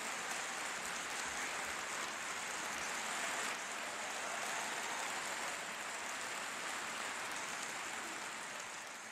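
Large audience applauding steadily in a concert hall, tapering off near the end.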